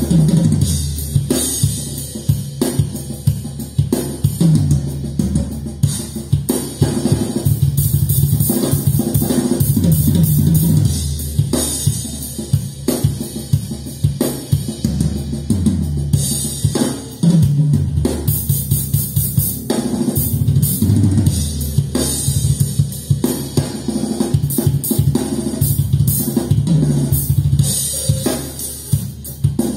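Drum test music played through Infinity Kappa 7 loudspeakers: a full drum kit with bass drum, snare and cymbals, hits coming thick and fast over strong bass.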